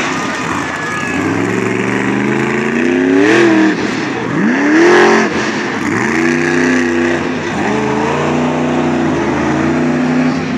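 Monster truck engine revving hard, its pitch climbing and dropping again and again, with the loudest burst about five seconds in.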